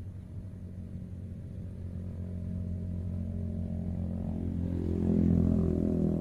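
An engine running at a steady pitch, growing louder and peaking about five seconds in, then easing slightly.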